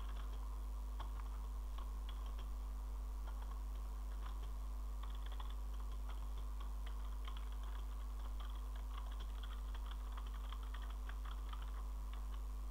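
Computer keyboard typing: runs of quick, irregular keystrokes over a steady low hum.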